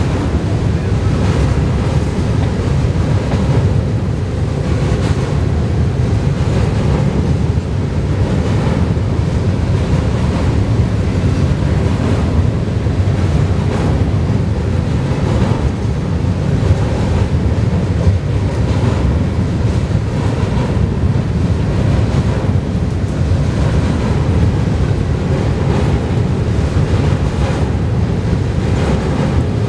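Florida East Coast Railway freight train of tank cars rolling steadily across a steel drawbridge: a continuous low rumble with faint irregular ticks, mixed with wind buffeting the microphone.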